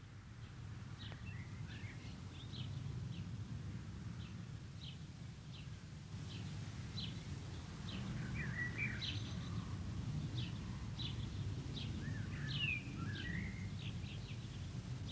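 Birds chirping, many short repeated chirps with a few wavering calls, busier in the second half, over a steady low background rumble.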